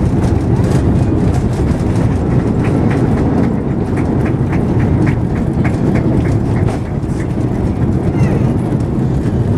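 Cabin noise of an Airbus airliner rolling on the ground just after landing: a steady, loud rumble. In the middle, a run of regular knocks comes at about three a second, typical of the wheels crossing pavement joints or centreline lights.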